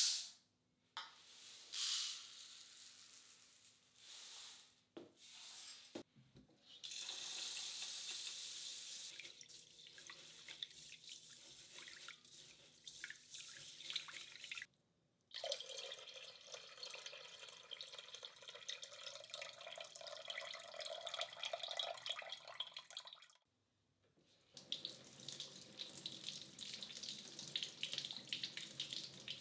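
Kitchen tap running into a stainless steel bowl while hands swish and rub rice in the water to wash it, then the tap running over a daikon radish rinsed in the sink. A few short clatters come in the first seconds, and the water sound stops briefly twice.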